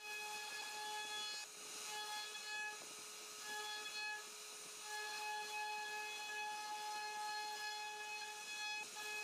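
CNC router spindle whining at a steady pitch as its bit carves into a wooden panel. A louder, higher layer of tone cuts in and out every second or so.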